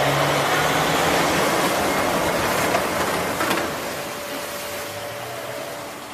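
Marine Corps amphibious assault vehicles launching from a ship's well deck into the sea: a loud rush of churning water with the vehicles' engines running beneath it. It eases off after about three and a half seconds.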